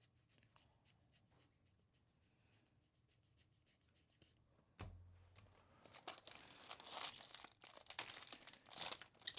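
Foil trading-card pack wrapper crinkling and being torn open by hand from about six seconds in. Before it there are a few faint clicks and a soft thump about five seconds in.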